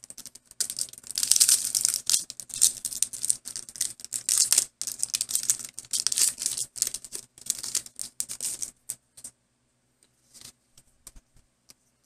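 Foil booster-pack wrapper crinkling and tearing open, a dense crackle for about nine seconds, then a few faint clicks as the cards are handled.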